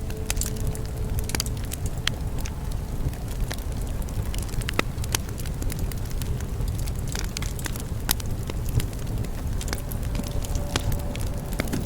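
Bonfire burning, with a steady low rumble and frequent irregular sharp crackles and pops of burning wood.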